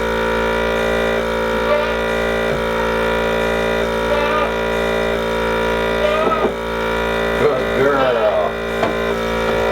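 Goat milking machine's electric vacuum pump running with a steady, even hum. A few short goat bleats come over it about six and eight seconds in.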